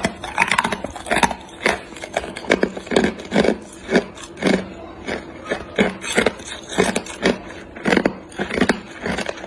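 Hard clear ice being bitten and crunched between the teeth, a steady run of crunches about two a second.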